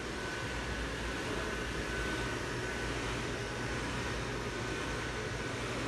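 Steady hum and hiss of the small electric blower fans keeping the airblown Christmas inflatables inflated, with a low hum underneath and a faint thin high whine that comes and goes.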